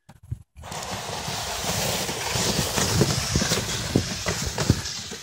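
Footsteps crunching through deep snow with a plastic sled towed behind, its hull hissing over the snow; the sound starts about half a second in.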